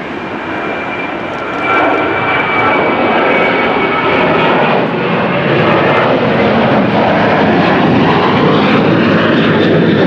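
Jet airliner's engines, a loud roar that swells sharply about two seconds in and then holds steady, with a high whine over it in the first few seconds.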